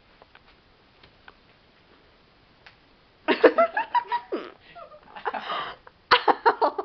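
A few faint clicks and rustles at first, then from about three seconds in a girl's laughter in quick, choppy bursts, with a breathy stretch in the middle and another run of laughs near the end.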